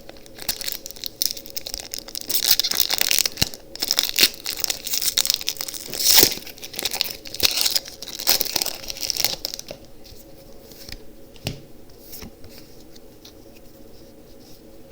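Foil booster-pack wrapper being torn open and crinkled, in uneven bursts of crackling that are loudest about six seconds in. After about nine and a half seconds it goes quiet, with only a few light ticks.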